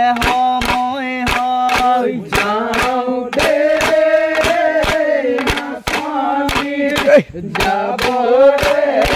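Men singing a Bihu song together in long held notes over a steady beat of sharp strokes, about three to four a second. About seven seconds in, the voices slide down and break off briefly before starting again.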